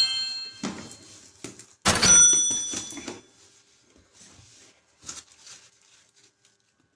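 A ringing chime fades out, then a sharp, bright ding comes about two seconds in and rings briefly. Faint scattered clicks and knocks of handling the box and its contents follow.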